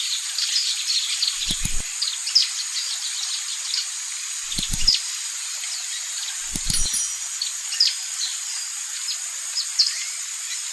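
Small birds chirping busily, many short quick calls overlapping, over a steady high hiss. Three brief low thumps come about a second and a half, four and a half, and six and a half seconds in.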